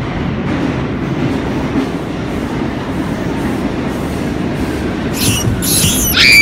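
New York City subway train pulling into the station, a steady low rumble, with a sharp high squeal near the end that is the loudest moment.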